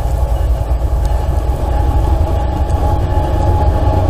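Freight train led by CSX GE Evolution Series diesel locomotives approaching at close range: a deep, steady engine rumble that grows louder as the lead unit draws near.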